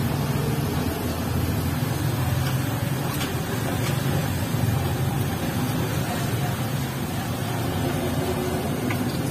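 Steady low mechanical hum, even in level, with a faint hiss above it.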